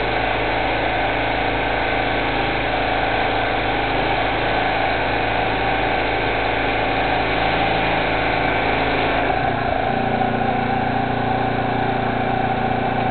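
Pressure washer's engine running steadily while the wand's jet sprays water onto concrete. The engine note changes about ten seconds in.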